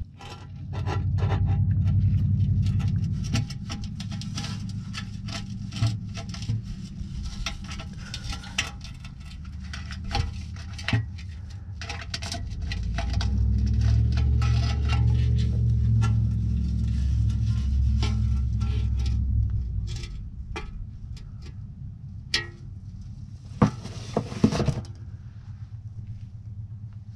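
Metal clinks, taps and scrapes as a Mercedes OM617 diesel's oil pan is worked loose and lowered off the engine, with a low rumble that swells up near the start and again in the middle.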